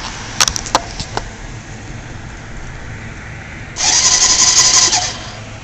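A few clicks, then the electric starter of a 2003 Suzuki GZ250's single-cylinder engine cranking with a whirring whine for a little over a second and cutting off without the engine catching. Muffled, as heard from inside a shirt pocket.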